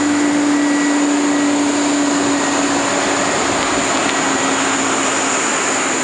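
Nova Bus LFS articulated city bus running hard as it struggles to get moving in snow: a loud, steady, vacuum-like whine, a held tone over a dense hiss.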